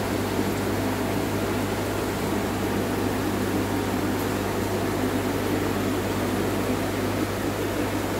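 Steady low hum with a hiss over it, unchanging throughout: aquarium air pumps and air-driven sponge filters running in a fish shop's tank room.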